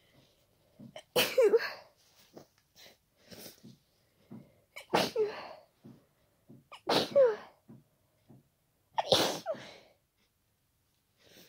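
A person with a head cold sneezing four times, wet and powerful sneezes about two seconds apart, with quieter short breaths between them.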